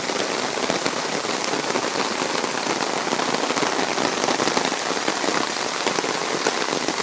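Heavy rain falling steadily, a dense hiss of drops pattering on the ground and surfaces.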